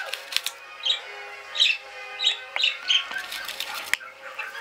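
Pet budgerigars chirping and chattering, a run of short sharp calls and warbles.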